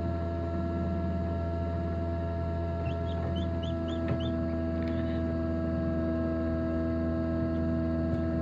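Steady mechanical hum from the incubator's fan and motor. About three seconds in, a duckling gives a quick run of about five short, high peeps.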